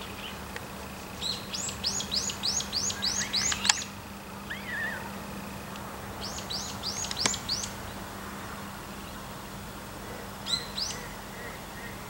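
Common kingfisher calling: runs of high, shrill, falling whistles, about three a second, first about eight, then six, then two. A sharp click falls twice, the louder one near the end of the first run.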